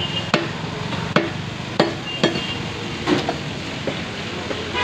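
Butcher's cleaver chopping through beef and bone on a wooden stump block: about five sharp strikes, unevenly spaced, over the first three seconds, against steady background noise.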